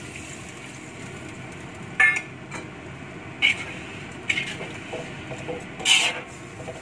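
A perforated metal ladle clinking and scraping against a metal wok as prawns in a little liquid are stirred. There are about half a dozen sharp knocks, the loudest about two seconds in and near the end.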